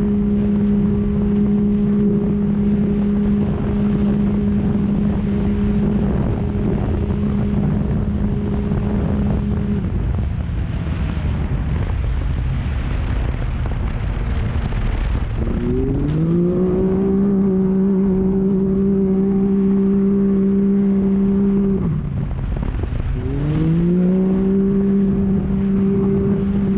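Off-road race vehicle's engine running at sustained high revs over constant rumbling wind and terrain noise. About ten seconds in the engine note falls away. It climbs back up at about sixteen seconds and holds, then dips and climbs again near the end.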